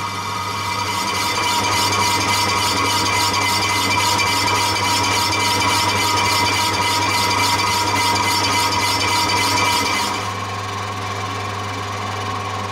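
Metal lathe facing a cast-aluminium table, the tool cutting with a steady hiss and a fast, regular pulse over the lathe's motor hum and gear tones. About ten seconds in the cutting sound stops and the lathe runs on alone, the tool no longer touching the hollow centre of the face.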